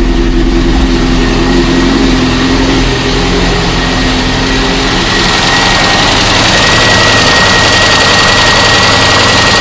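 VAZ 21099 four-cylinder engine running near idle, then rising about four seconds in to a higher, steady speed with a thin whine. The car came in with a knock that the owner puts down to a worn connecting rod.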